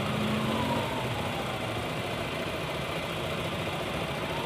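Honda Lead 110 scooter's single-cylinder four-stroke engine dropping from raised revs back to idle in the first second or so, then idling steadily, with a slight rise in revs near the end.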